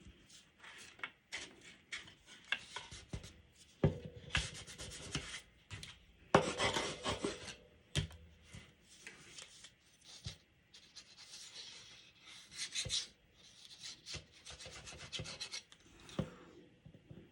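Hands rubbing and smoothing cardstock against the desk in irregular bursts of scraping, pressing a glued paper fold flat, with a few sharp taps in between.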